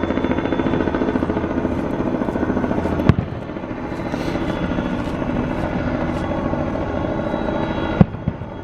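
Helicopter flying overhead, its blades making a steady fast chop. Two sharp bangs cut through, about three seconds in and again near the end.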